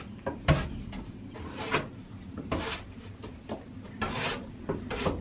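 A grooming brush rasping over a goat's coat in a few short strokes about a second apart, with a single sharp knock about half a second in.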